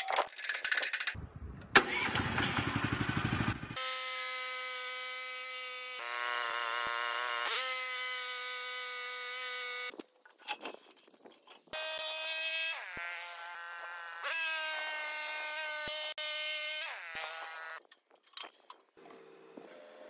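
Sawmill's gasoline engine pull-started, catching about a second in and running for a few seconds. Then a music track of long held notes, some wavering, that change every few seconds.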